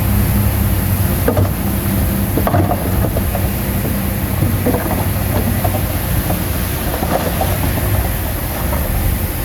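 Bulldozer's diesel engine running steadily under load, with scattered metallic clanks and rattles throughout.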